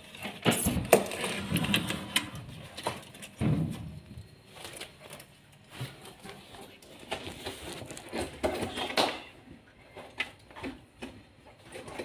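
Irregular knocks, scrapes and clatter of hands moving things around behind and under a refrigerator, loudest just under a second in and again around three and a half seconds in.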